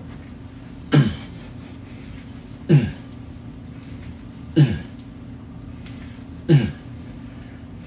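A man grunting with effort four times, about every two seconds: one short grunt falling in pitch with each kettlebell rep.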